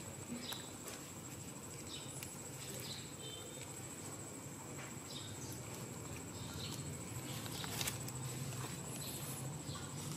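Soft short chirps recurring every second or so over a steady high-pitched drone, with light rustling of plastic baskets and one sharp click about eight seconds in.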